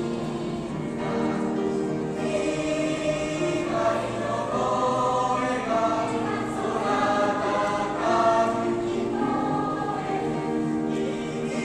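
Mixed high school choir of girls' and boys' voices singing a song in parts, with long held notes that shift in pitch.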